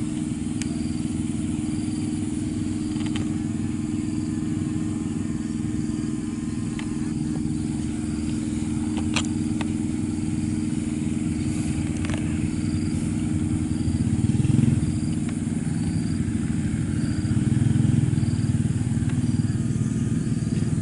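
A steady low mechanical hum like a small engine running, with a faint high chirp repeating about once a second and a few sharp clicks.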